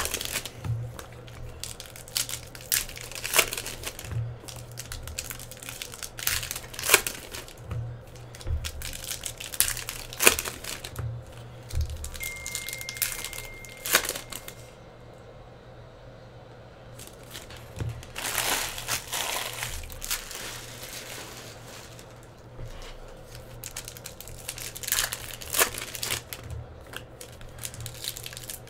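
Foil wrappers of 2016 Donruss basketball trading-card packs crinkled and torn open by hand, with the cards inside handled. It sounds as irregular sharp crackles, with a quieter pause a little past the middle.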